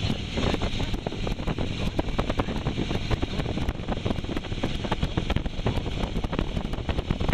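Wind buffeting the microphone in quick irregular gusts and crackles, over a steady low vehicle rumble.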